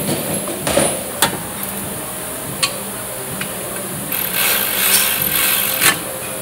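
Hand work on an engine's intake manifold: metal parts and tools clicking and knocking a few times, then about two seconds of scraping and rustling starting about four seconds in, as a vacuum line and 10 mm bolt are fitted. A steady faint hum runs underneath.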